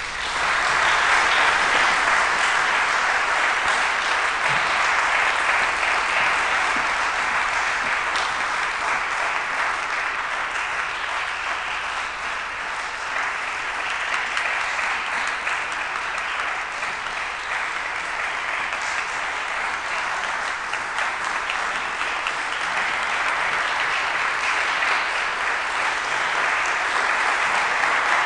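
Audience applauding, breaking out suddenly and carrying on, easing a little midway and building again near the end.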